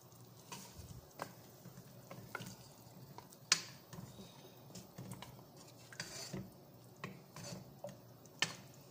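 Wooden spatula stirring and scraping chicken pieces in a non-stick pot, with irregular knocks of the spatula against the pot and a faint sizzle as the chicken cooks in its spiced marinade. The sharpest knock comes a few seconds in, another near the end.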